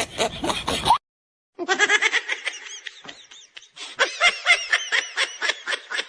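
Laughing sound effect: rapid high-pitched giggling, about eight short 'ha' pulses a second, in two runs, the second trailing off. About a second in, a different sound cuts off abruptly just before it.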